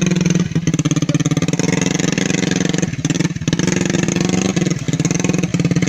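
Motorcycle engine running, with a steady tone that dips briefly a few times as the throttle is eased and opened again.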